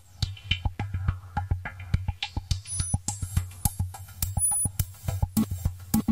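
Background music with a fast, steady percussive beat over a low, sustained bass note.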